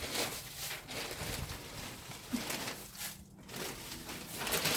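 Feet shuffling and kicking loose pine shavings across a coop floor: a series of irregular rustling scuffs.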